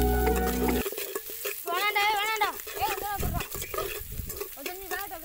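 Shallots, green chillies and curry leaves sizzling in an aluminium pot over a wood fire, stirred with a metal spoon that scrapes the pot. Background music cuts off about a second in. An animal bleats with a wavering pitch around two seconds in, followed by a few shorter calls.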